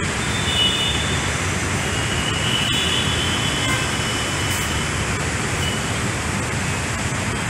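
Steady city road traffic noise, dense and low, with a few faint distant vehicle horns in the first half.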